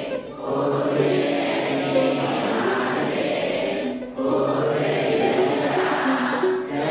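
Many voices singing together in long held notes, phrase by phrase, with short pauses just after the start, about four seconds in and near the end.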